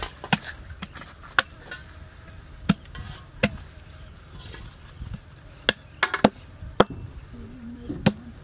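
Meat cleaver chopping into a goat leg on a wooden stump block: about ten sharp chops at uneven intervals, several in quick succession around six seconds in.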